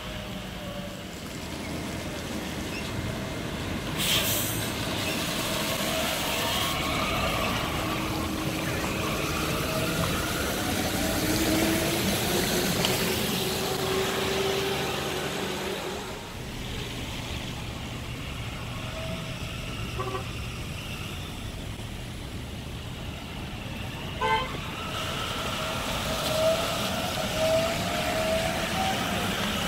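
Translohr rubber-tyred trams passing on a wet street: the traction motors whine in tones that rise and fall as one tram goes by and another draws near, over a steady hiss of tyres and traffic. A sharp click comes about four seconds in, and a few short sharp sounds come near the end.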